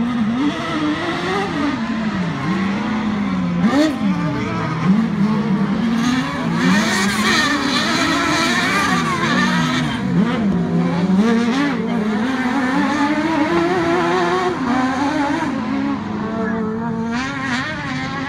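Several autocross race car engines revving hard on a dirt circuit, their pitch rising and falling over and over as they accelerate and lift off.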